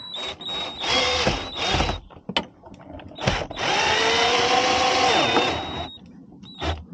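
Cordless drill-driver driving a screw through the curtain rail into the van's body: a few short bursts of the motor, then one longer run of about two seconds.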